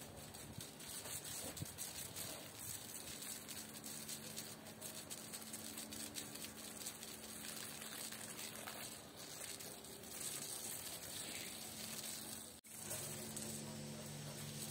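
Pressure washer spraying water, a steady hiss. Near the end it cuts out for an instant, then comes back with a low steady hum under it.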